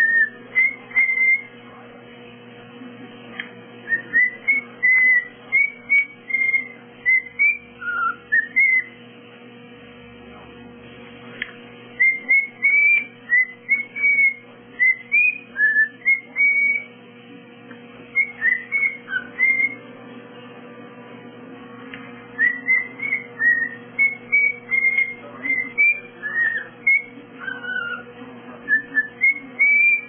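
Cockatiel calling in bouts of short whistled chirps, each note rising or falling in pitch, with pauses of a couple of seconds between bouts: a pet bird begging for food.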